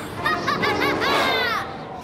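A high-pitched cartoon character's wordless vocalizing: a quick run of short calls, then one long falling call.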